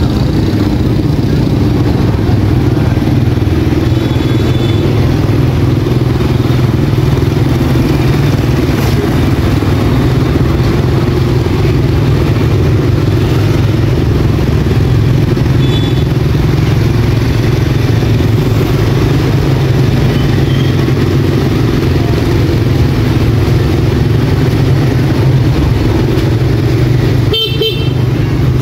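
Motorcycle engine running steadily while riding, a continuous low drone with road noise. A short high-pitched tone sounds near the end.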